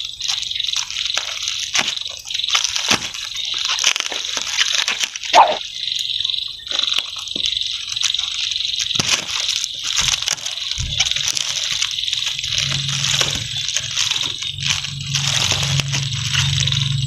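Scissors snipping through a thin plastic bag and the plastic crinkling and rustling as it is handled and pulled open, in irregular crackles and clicks over a steady high hiss. A low hum joins in during the last few seconds.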